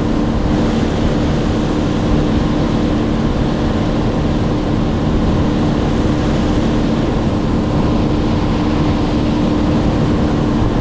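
An engine running steadily at constant speed, a drone holding the same pitch throughout, with a rushing noise over it.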